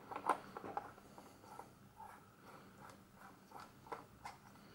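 Faint clicks and light scrapes of an extra add-on lens being handled and turned into place on the front of a Revue Super 8 Pocket L super 8 camera, with a small cluster of clicks near the start.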